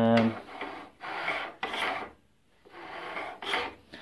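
Bandsaw mitre gauge, an aluminium bar with a plastic head, sliding in the metal table's slot: a handful of short scraping strokes.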